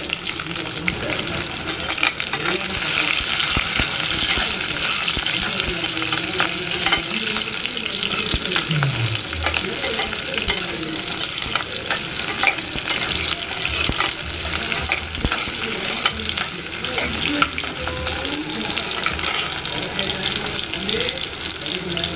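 Shallots sizzling in hot oil with mustard seeds and cumin in a pressure cooker pan, a continuous frying hiss. A perforated steel spoon stirring them scrapes and clicks against the pan throughout.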